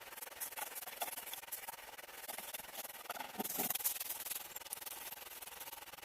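Rough rubbing and scraping noise with many small clicks, growing louder around three and a half seconds in.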